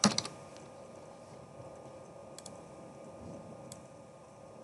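Computer keyboard typing that stops right at the start, then a few single, sparse clicks of a computer mouse over a faint steady hum.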